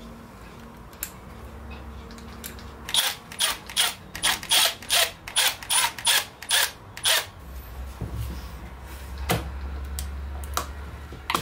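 Cordless impact driver driving screws in a quick series of about a dozen sharp bursts, about three a second, then a low steady hum with a couple of single knocks.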